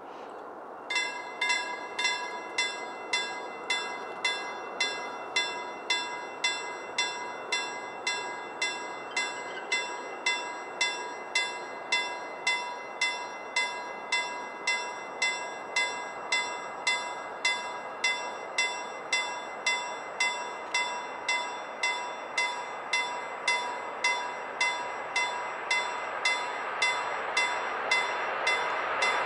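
Level crossing warning bell starting about a second in and ringing steadily at about two strokes a second, the signal that a train is approaching; the noise of the approaching train grows under it near the end.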